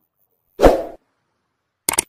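Subscribe-button animation sound effects: a short swoosh about half a second in, then a quick double mouse click near the end as the cursor presses the button.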